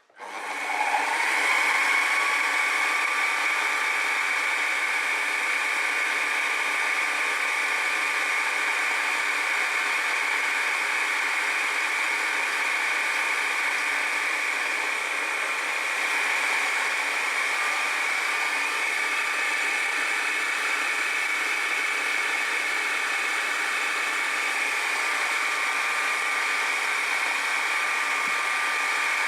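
A machine tool's electric motor switches on, its whine rising in pitch over about the first second, then runs at a steady, even pitch and level as the second cut on the replacement gear begins.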